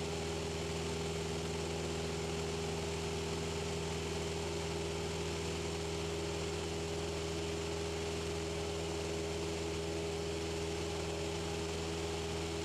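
Cessna 172's piston engine and propeller droning steadily during the climb, heard through the headset intercom as an even, unchanging hum.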